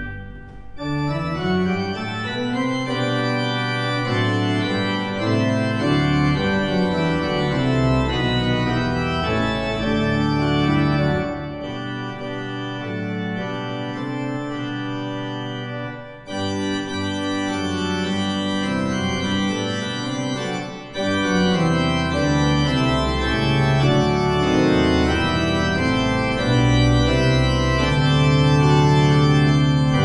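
Church organ playing a Christmas carol: sustained chords over a moving bass line, with two short breaks between phrases, about halfway through and again a few seconds later.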